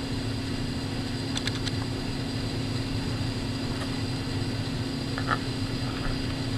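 Steady low machine hum with a constant tone, with a few faint clicks about a second and a half in.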